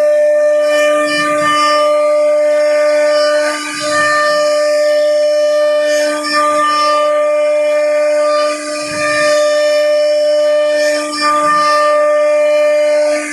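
CNC router spindle running with a steady high whine at constant pitch. About every two and a half seconds the level dips briefly with a short low rumble.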